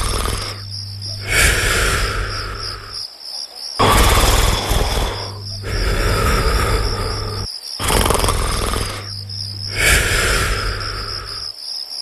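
Cartoon snoring sound effect in a slow loop, one snore about every four seconds, over steady chirping of crickets.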